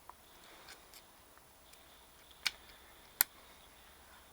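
Light handling ticks, then two sharp clicks about three-quarters of a second apart, the second louder. They come from multimeter test probes being put against an old electric motor's terminals for an insulation-resistance check.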